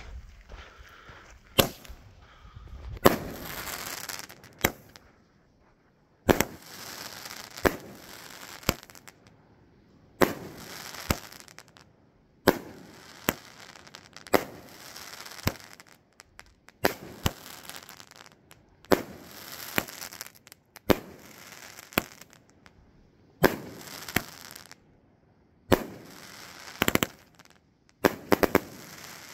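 A 15-shot consumer fireworks cake firing shot after shot, each launch thump followed about a second later by the bang of the shell bursting, a new shot every two seconds or so.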